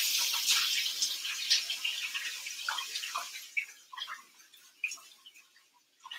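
Water hissing and splashing, fading away over several seconds into scattered drips and small clicks.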